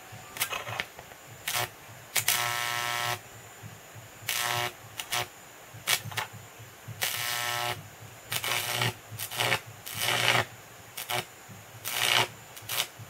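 High-voltage arc from a microwave oven transformer striking between aluminium and iron, buzzing and crackling in irregular bursts as it catches and breaks. The bursts run from a split second to nearly a second long, with about a dozen of them.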